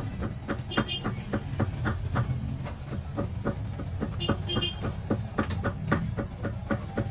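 Small hammer tapping on a gold ring in a goldsmith's hand work, a steady run of light metallic blows about three or four a second, over a steady low hum.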